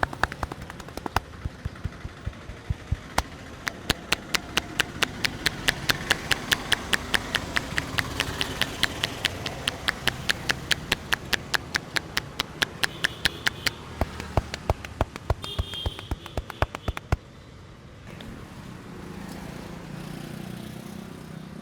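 Rapid percussive massage: a barber's hands slapping or chopping rhythmically on a client's head or back, a fast even run of sharp slaps about four to five a second that stops suddenly about seventeen seconds in.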